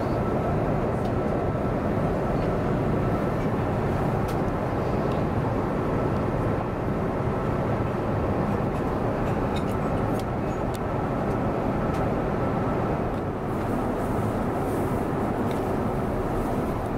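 Steady cabin noise inside an Airbus A350-900 airliner in cruise: an even rush of air and engine drone, with a faint high steady tone running through it.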